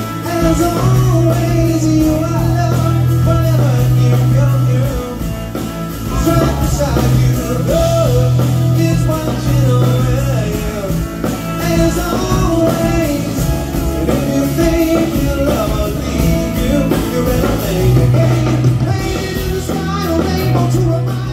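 Live rock band playing through an outdoor PA: electric guitars, drums and long held bass notes under a sung melody.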